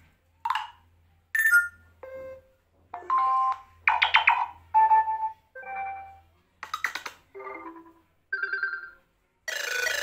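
A Nokia 5.3 smartphone's speaker playing a run of about ten short stock Android notification tones, chimes and jingles of differing pitch, each cut off as the next one in the list is tapped to preview it.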